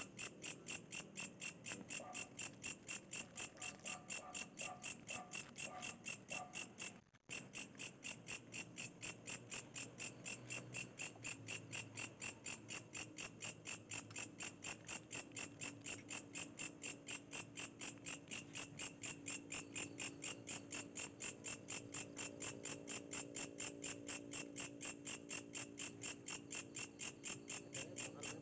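Cricket chirping in a steady, even rhythm of about three chirps a second, briefly cut off about seven seconds in. A faint low hum joins in the second half.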